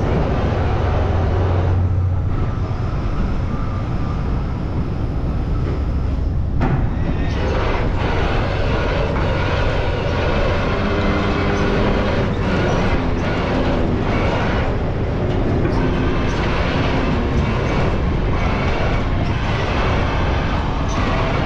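Ship's engines and deck machinery running: a loud, steady low rumble with rattling and clatter over it.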